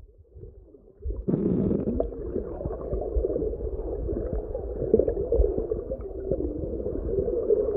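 Muffled underwater churning of water against a submerged camera's microphone, a steady low rumble with small scattered knocks from swimmers kicking close by. It starts up suddenly about a second in.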